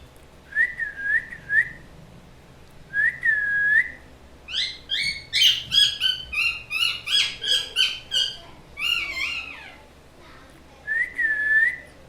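Pet parrot whistling and chirping. Three short dipping whistles and then a longer one are followed by a run of quick, down-sliding chirps lasting about five seconds, with another dipping whistle near the end.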